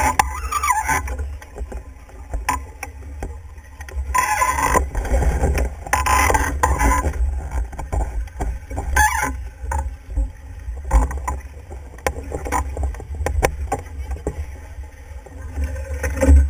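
Wind buffeting the microphone and water rushing along the hull of a Stiletto sailing catamaran under way, swelling in several loud rushes, with scattered light clicks and knocks from the deck gear.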